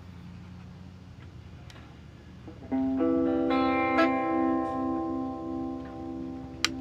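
Electric guitar played through a Mosky distortion pedal: after a couple of seconds of amp hum, a distorted chord is struck, picked again, and left to ring out and slowly fade, and a sharp click sounds near the end.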